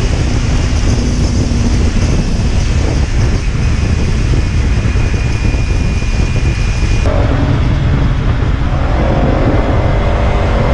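Kawasaki Ninja 300's parallel-twin engine and exhaust running at riding speed, heard from the rider's helmet with heavy wind noise. About seven seconds in, the sound changes abruptly and the high hiss drops away.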